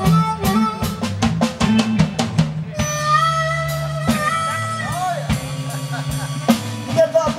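Live Chicago blues band playing: drums and upright bass keep a steady groove. About three seconds in, an amplified blues harmonica comes in with long held notes and bent notes.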